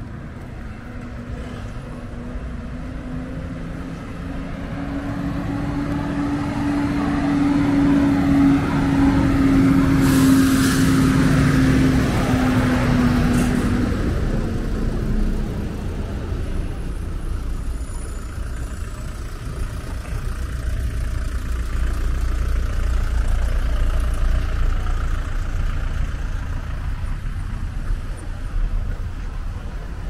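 A motor vehicle passing close by, its engine note swelling and then fading away about halfway through. A second vehicle follows with a lower rumble that rises and falls.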